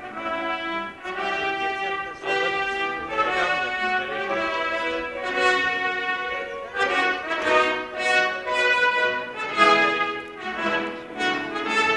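Brass instruments playing held chords, the notes changing every half second to a second.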